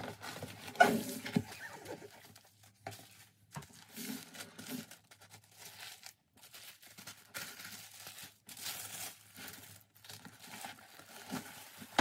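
Gift packaging being handled: a satin ribbon pulled loose, a cardboard box opened, and tissue paper and a fabric dust bag rustling and crinkling as they are folded back, in irregular bursts, loudest about a second in.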